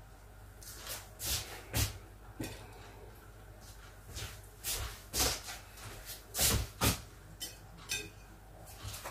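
Kitchen work: irregular knocks, clinks and clatters of dishes, utensils and cupboard or drawer doors being handled, with a louder cluster about six and a half seconds in.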